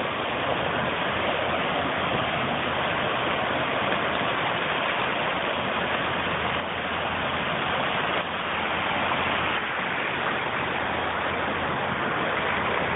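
Steady rush of surf washing in over the shallows at the water's edge, an even hiss without breaks.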